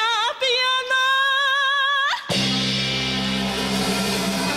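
A woman's voice sings a wordless run with wide vibrato, without accompaniment, then holds a long high note that slides sharply upward at its end. Just after it, a few seconds in, the band comes in with sustained keyboard chords.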